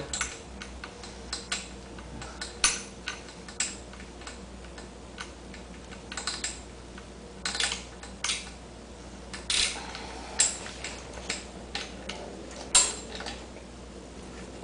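Irregular metallic clicks and light rattles from a bicycle chain and a hand-turned chain breaker as the chain's pin is pressed through to join it. There are a couple of dozen uneven clicks, a few louder ones among them.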